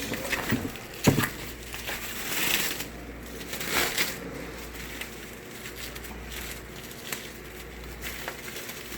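Handling noises from a laptop screen repair: a sharp click about a second in, then two short bursts of rustling and quieter scraping and shuffling.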